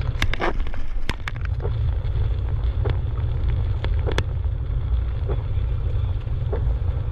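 A car driving on a gravel road, heard from inside: a steady low rumble of engine and tyres, with about ten scattered sharp ticks and clicks.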